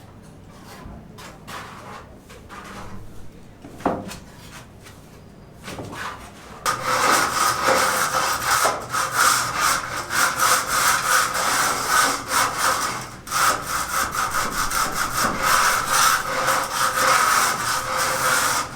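A saw cutting through wood, starting loudly about seven seconds in after a quieter stretch of small clicks, and running continuously with one short break midway.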